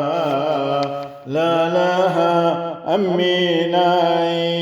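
A man's solo voice chanting a Gospel reading unaccompanied, holding long notes with winding ornaments. The phrase breaks off briefly about a second in, then continues on a long sustained note.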